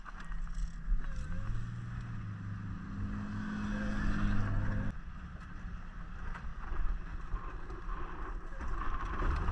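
A vehicle engine running, rising in pitch about a second in and holding steady, then breaking off abruptly about five seconds in, leaving a lower, rougher rumble.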